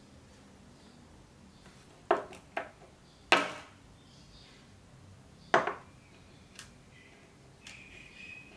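Small metal lens parts clinking against a hard surface as they are handled and set down: four sharp clinks, the loudest about a third of the way in, ringing briefly. A faint thin squeal comes near the end.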